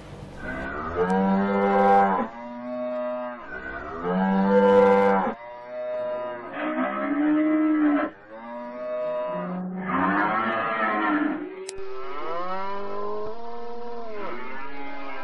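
Cattle mooing over and over: about eight long calls one after another, several of them rising and falling in pitch.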